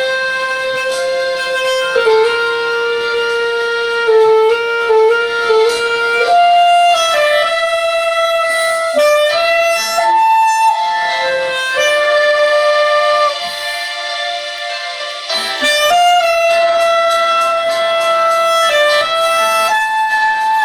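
B-flat clarinet playing a slow melody of long held notes along with a song's recording played aloud from a phone.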